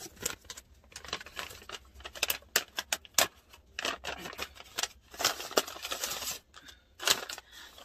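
Crinkling, crackling and tearing of a mailing envelope being pulled open by hand, in irregular bursts with a denser stretch of rustling about five seconds in.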